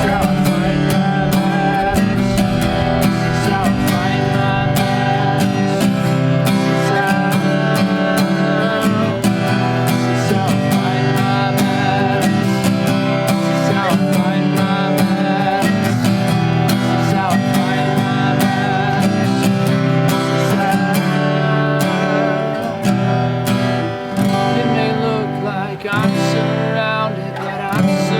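Live worship music led by a strummed acoustic guitar, steady and full, easing off somewhat near the end.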